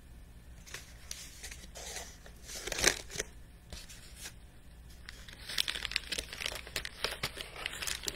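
Plastic bag and cardboard packing pieces rustling and crinkling as they are handled, with one sharp knock a little under three seconds in and a busier stretch of crinkling in the second half.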